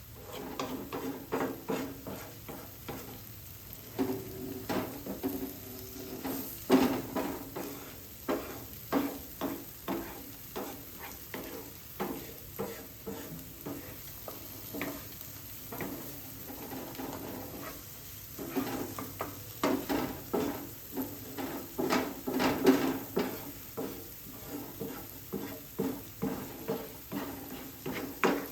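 A utensil scraping and knocking around a pan, stroke after stroke, as curry is stirred while it fries, with a steady sizzle underneath.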